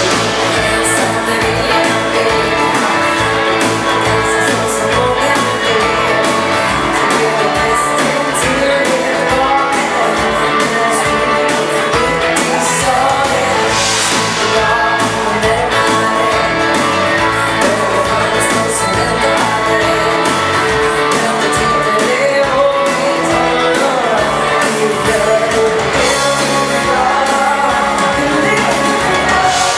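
Live dance band playing an up-tempo bugg (Swedish swing/rock-and-roll) number: a woman's lead vocals over electric guitars and drums, steady and loud.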